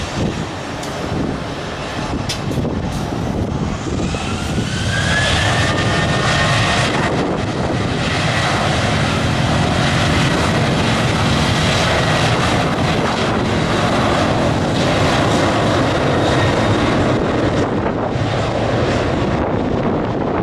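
Boeing 737-800's CFM56-7B turbofan engines spooling up for takeoff: a rising whine about four seconds in, then a steady, loud jet noise as the airliner accelerates down the runway on its takeoff roll.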